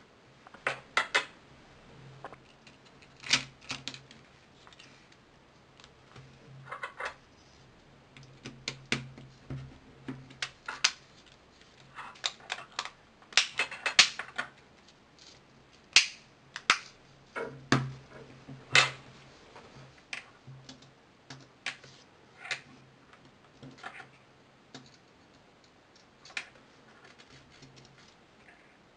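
Irregular small clicks and taps of a ZTE Skate Pro mobile phone's plastic housing being handled and pressed together by hand, its clips snapping into place, with a few sharper, louder clicks among them.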